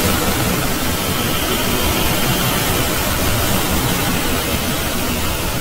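Loud, steady hiss of static noise filling every pitch, a digital-distortion sound effect.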